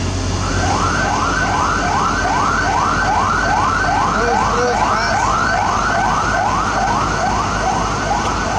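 Electronic siren-style warning wailing in rapid rising sweeps, about two to three a second, starting about half a second in, over a steady low engine rumble.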